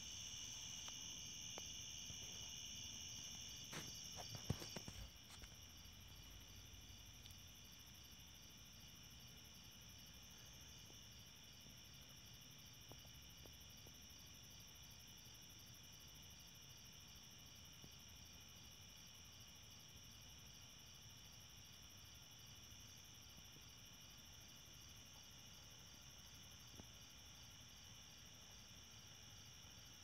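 Faint night chorus of insects: steady high-pitched trilling with a fast pulse. A couple of sharp clicks come about four to five seconds in, after which the chorus is a little quieter.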